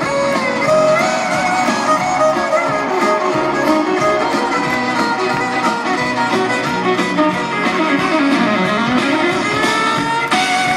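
Live country band playing an instrumental break, a fiddle carrying the melody over strummed guitars, heard from the crowd through a phone. Near the end the fiddle slides down and back up.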